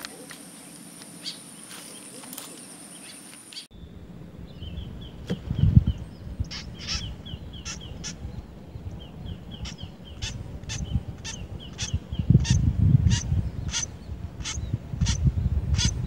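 White-breasted woodswallows calling at their nest: short, harsh notes repeated about twice a second, with quicker faint chirps between, starting a few seconds in. Wind buffets the microphone in low rumbles, loudest about halfway through and near the end.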